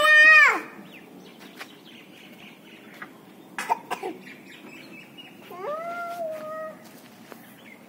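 A young child's high-pitched drawn-out squeal that breaks off about half a second in, a few light knocks, then a second, shorter squeal about two-thirds of the way through.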